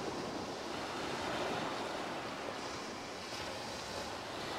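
Steady wash of sea waves breaking on a shingle beach, swelling slightly about a second in.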